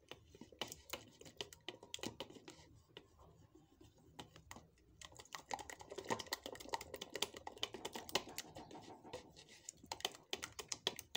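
A whisk beating egg mixture in a plastic bowl: rapid, irregular clicking and tapping of the whisk against the bowl, busier and louder in the second half.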